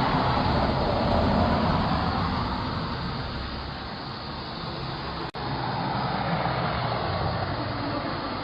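Steady outdoor background noise like road traffic passing, with a low hum underneath; the sound drops out for an instant about five seconds in.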